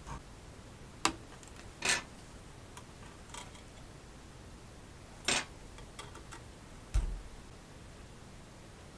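A few scattered small clicks and short ticks from tools being handled while soldering a wire onto a motherboard pin, with a low thump about seven seconds in.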